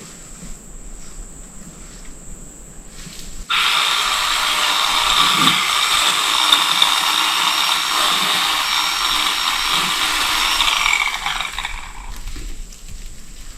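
Chainsaw cutting brush and small trees: it starts abruptly about three and a half seconds in, runs loud and steady for about eight seconds, then dies away.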